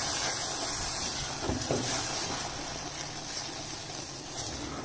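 Butter-and-flour roux with evaporated milk sizzling in a hot stainless steel pot, a steady hiss, while a silicone spatula stirs and presses the thick paste, with a couple of brief scrapes about one and a half seconds in.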